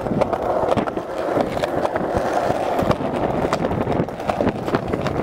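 Skateboard wheels rolling steadily over a concrete sidewalk, with repeated sharp clacks as they pass over the cracks and joints.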